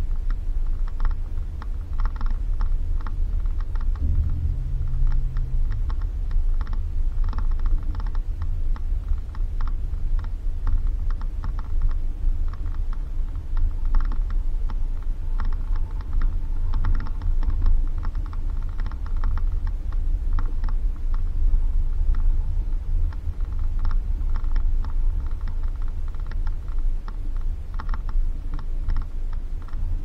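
Suzuki Jimny driving on a rough dirt road: a steady low rumble with irregular rattling and clicking over the bumps, and a brief low hum about four seconds in.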